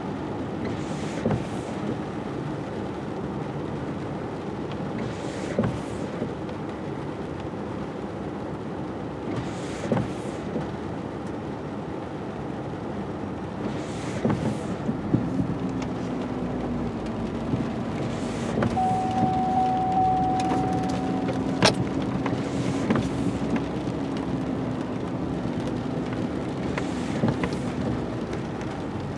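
Windshield wipers sweeping across a wet windshield about once every four seconds, heard from inside a vehicle's cab over a steady engine drone. A nearby tractor engine's hum comes up in the second half. Past the middle a steady tone sounds for about three seconds and ends in a sharp click.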